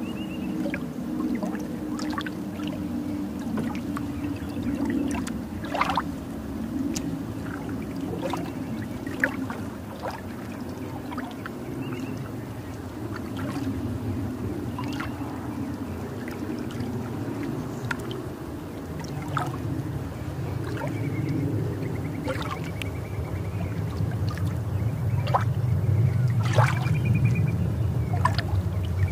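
Outdoor ambience beside a slow canal: a steady low rumble with water trickling and scattered short clicks. The rumble grows louder over the last few seconds.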